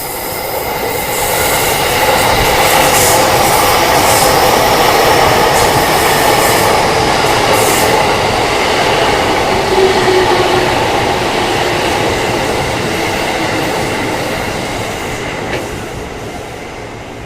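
Electric commuter train running along the station platform, a loud steady rumble of wheels on rails with some light wheel squeal and clatter. It builds over the first couple of seconds, holds, then slowly fades near the end.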